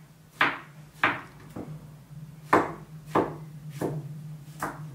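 Santoku knife slicing a zucchini into rounds on a wooden cutting board: about seven separate cuts, each ending in a sharp knock of the blade on the board, spaced roughly half a second to a second apart. A faint steady low hum sits underneath.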